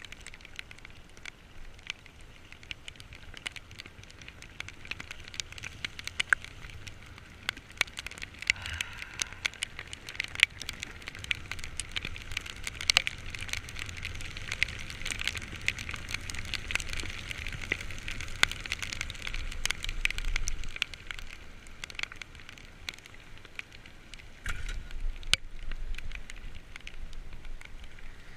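Heavy rain crackling in many sharp drop hits over a steady hiss, with a low rumble that swells twice, near the two-thirds mark and near the end.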